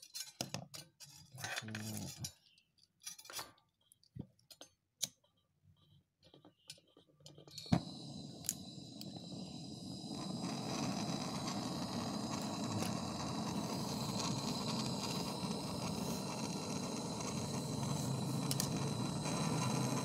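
Metal tools clinking and tapping. About eight seconds in, a portable gas brazing torch lights with a sharp click and then burns with a steady hiss and a thin high whistle, heating a refrigerator compressor's copper pipe until it glows red.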